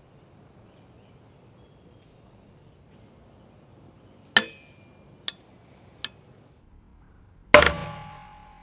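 3D-printed PETG-CF sine-wave joint cracking as it is twisted by a torque wrench: a sharp crack about four seconds in, two smaller snaps, then the loudest crack near the end as the joint breaks, followed by a faint steady tone.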